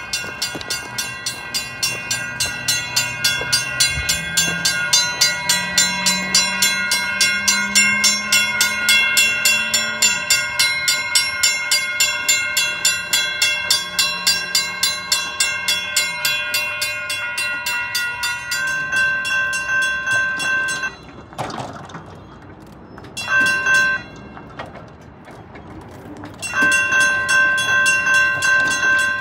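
Railroad crossing warning bell ringing in rapid, even strikes, with a low hum from the gate mechanism's motor running a few seconds in and again near the middle. The bell stops about three-quarters through, sounds again briefly, then resumes near the end. The crossing is malfunctioning because a coil in the gate's hold clear device has burned out.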